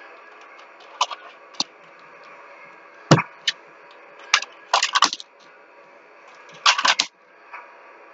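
Plastic toy train coaches being handled on their track: a series of sharp clicks and clattering knocks, with quick rattling clusters about five and seven seconds in and a heavier knock about three seconds in.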